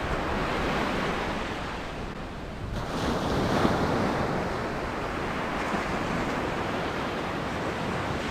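Surf washing onto a beach, with wind on the microphone; the noise dips slightly about two seconds in, then picks up again.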